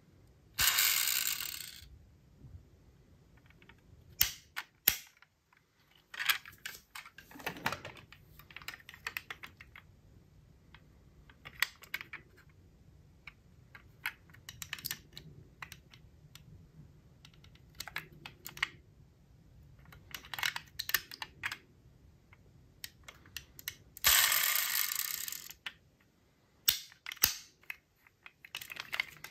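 Small die-cast model cars and their packaging being handled, giving irregular clicks, taps and light knocks. There are two longer, louder sliding sounds, one at the start and one near the end.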